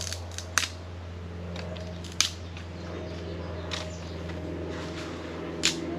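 A few sharp, short clicks or snips at irregular intervals, the loudest three about half a second in, just after two seconds and near the end, over a steady low hum.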